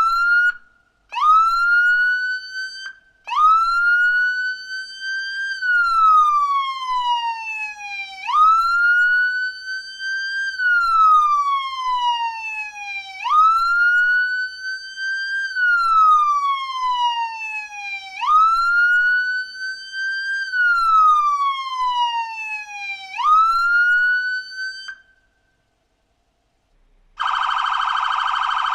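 Police car siren: two short rising chirps, then the wail, a slow rise and fall in pitch repeating about every five seconds, cutting off about 25 seconds in. About two seconds later a steady harsh buzzing tone starts.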